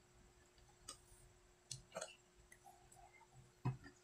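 A utensil stirring a thick rice-flour batter in a plastic bowl: a few faint separate clicks and taps against the bowl, the loudest near the end.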